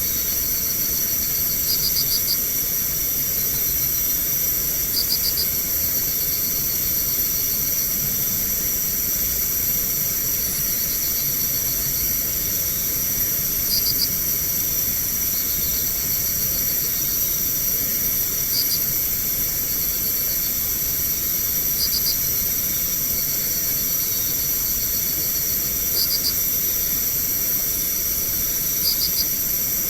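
Night insects, crickets among them, keeping up a steady high-pitched shrill chorus, with short chirps of a few rapid pulses every three to four seconds. A low hiss runs underneath.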